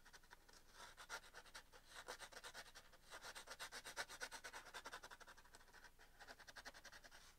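Charcoal pencil scratching faintly across canvas in rapid short strokes, filling in a shaded area.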